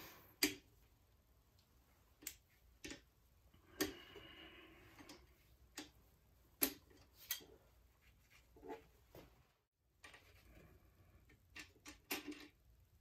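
Scattered sharp metallic clicks and clacks from a long bar and socket on the Honda K24a2's connecting-rod cap bolts as they are broken loose, then from handling the rod cap. The sounds are faint and come at irregular intervals.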